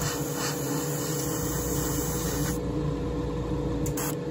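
Airbrush spraying a final coat of lacquer paint: a steady hiss of air that cuts off about two and a half seconds in. A steady low hum runs underneath.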